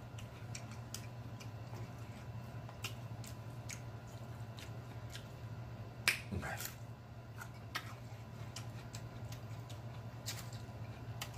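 Close-up eating mouth sounds: wet lip smacks and chewing clicks scattered throughout, with a louder bite about six seconds in as a green jalapeño pepper is bitten into. A steady low hum lies underneath.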